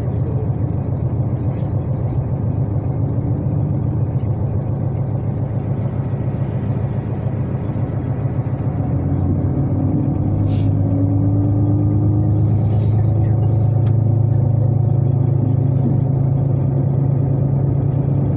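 Diesel express train's underfloor engines droning as the train pulls out of a station. About nine seconds in they throttle up, growing louder and rising in pitch as the train accelerates, with a brief hiss a few seconds later.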